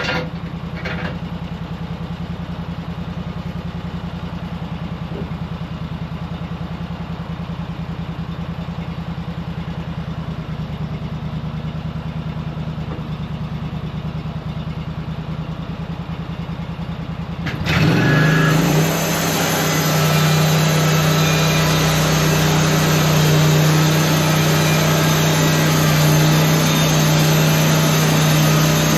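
Portable sawmill engine idling steadily, then throttled up about eighteen seconds in and running louder and harsher at a steady higher speed.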